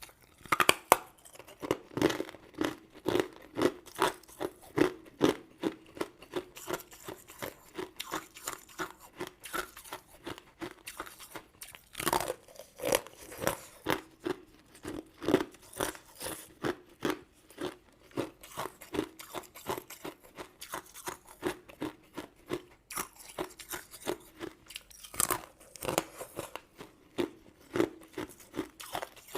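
Close-miked chewing of crunchy sugar-crusted crystal sweets and jelly, crackling and crunching at about two chews a second. A few louder cracks, near the start, about twelve seconds in and about twenty-five seconds in, sound like fresh bites through the crust.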